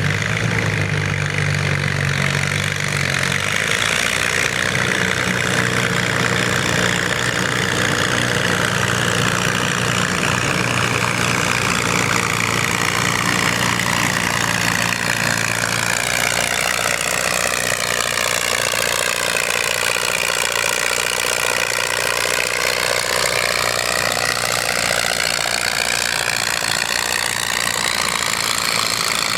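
Farm tractor engine running hard under load in a pull. Its pitch sags about two-thirds of the way through and climbs back near the end, as the engine is pulled down and then recovers.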